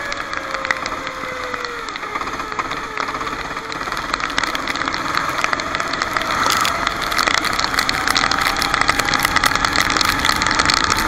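Racing kart engine running: the revs drop over the first two seconds, then climb steadily from about six seconds on as it accelerates, with a constant rattle of clicks over the top.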